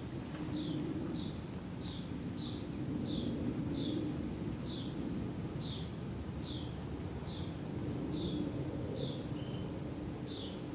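A small bird repeating a short, high, falling call note a little more than once a second, over a steady low background rumble.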